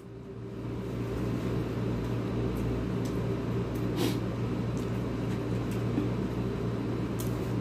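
A steady low machine hum with a few faint clicks, about four seconds in and again near the end.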